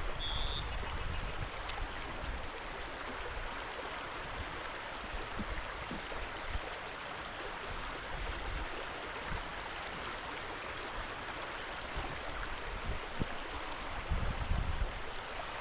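Steady rush of flowing creek water, with a low rumble near the end.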